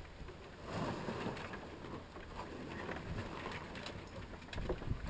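Small sailboat under way: wind buffeting the microphone in gusts over a steady wash of water along the hull, with a few light clicks near the end.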